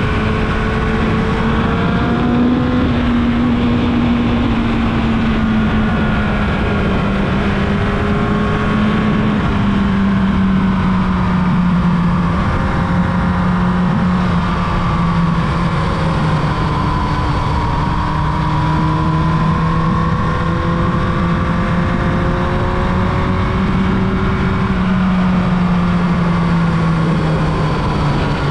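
Carbureted Yamaha YZF R1's inline-four engine running at a steady cruise, its pitch sinking slowly and rising slightly again as speed eases off and picks up, over a steady noisy rush.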